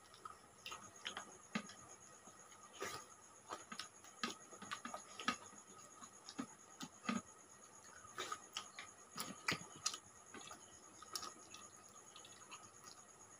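Soft, irregular clicks and smacks of people eating rice and fish curry with their hands: chewing, and fingers mixing food on their plates. A faint steady high whine runs underneath.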